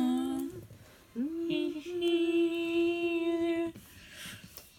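A woman's voice singing long held notes. One note ends about half a second in, and a longer, steady note starts just after a second in with a short slide up and stops near four seconds.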